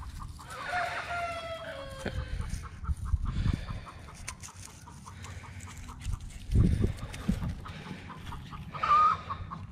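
Domestic turkeys calling: a drawn-out call falling in pitch about a second in and a short sharp call near the end, over a run of faint regular clicking. Two low rumbling thumps come in between, the louder about two-thirds of the way through.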